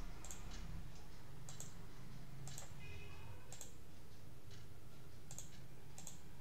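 Computer mouse clicking at irregular intervals, a single sharp click roughly once a second, while wires are placed in a circuit schematic program, over a low steady hum.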